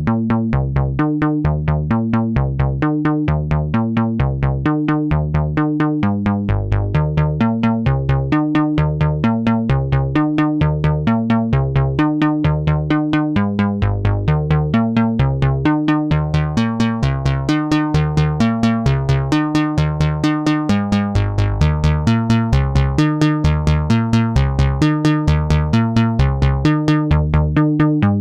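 Behringer Octave Cat analog synthesizer playing a fast, steady sequenced bass line driven from a Roland SH-101's sequencer. Its filter opens brighter about halfway through and closes down again near the end.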